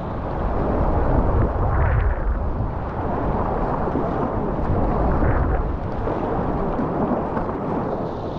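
Whitewater rapids rushing, a steady wash of noise with a heavy low rumble, picked up close to the water from a kayak in the current.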